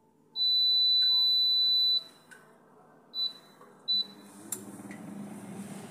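Gourmia digital air fryer's control panel beeping: one long beep of about a second and a half, then two short beeps as its buttons are pressed. About four seconds in, the fan starts a steady whir as the fryer begins preheating at 200°C.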